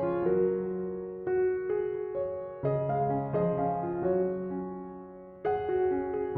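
Background music: gentle piano playing slow chords, with new chords struck about every one to three seconds.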